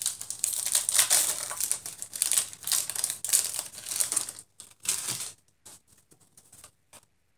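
Foil Pokémon trading card booster pack wrapper crinkling as it is torn and pulled open by hand. A dense crackle lasts about four and a half seconds, then comes one short burst and a few light rustles.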